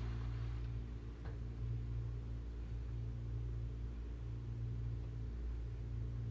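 A steady low hum of several level tones, with a faint click about a second in.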